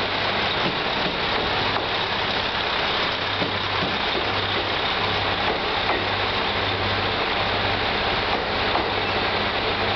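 Two-car KiHa 200 diesel railcar pulling slowly into a station close by, its diesel engines running at low power with a low hum that pulses on and off, over a steady rush of wheel and rolling noise.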